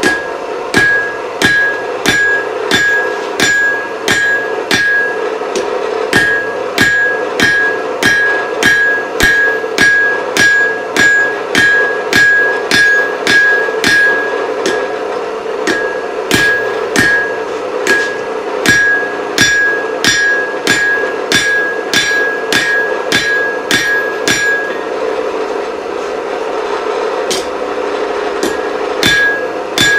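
Hand hammer striking hot alloy-steel chisel stock on an anvil: hard, evenly paced blows about two a second, many with a bright ring. The blows pause for a few seconds near the end, then start again, over a steady hum.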